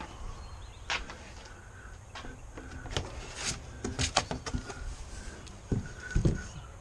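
Cardboard grill shipping box being opened by hand: flaps scraping and rustling, with scattered clicks and knocks and a couple of dull thumps near the end.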